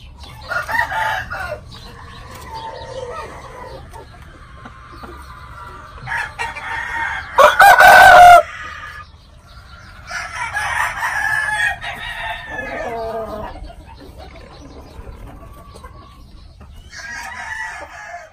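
Rooster crowing: one loud crow of about a second, a little past halfway, among shorter, quieter calls from the roosters before and after it.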